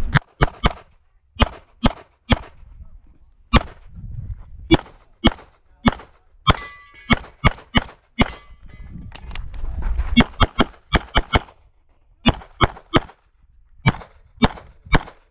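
Rapid pistol fire from a CZ 75 SP-01 with a red-dot sight: about thirty sharp shots, mostly in quick pairs, with short pauses between strings.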